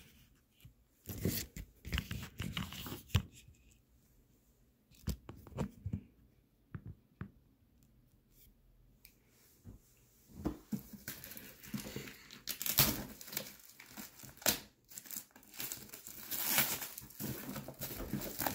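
Scattered knocks and rustles of handling, then from about eleven seconds in the clear plastic shrink wrap on a cardboard retail box being torn and crinkled off, growing louder.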